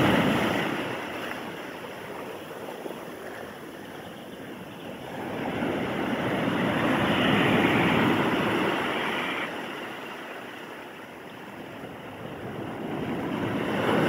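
Sea waves breaking and washing up a sandy beach. The surf noise swells and fades, loudest at the start, again about seven to eight seconds in, and rising once more near the end.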